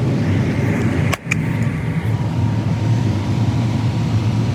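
Combine harvester running at work, a steady low drone of engine and machinery. About a second in it cuts out very briefly with a couple of sharp clicks.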